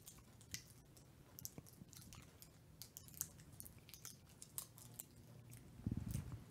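Faint scattered clicks and crinkles from prefilled communion cups being handled and their plastic seals peeled open, with a short low murmur near the end.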